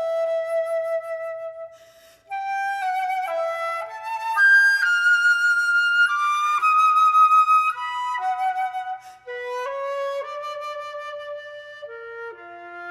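Unaccompanied flute playing a slow melodic phrase: a held note that fades out, a short breath, then notes climbing step by step to a high held note about five seconds in, before stepping back down to a low note near the end.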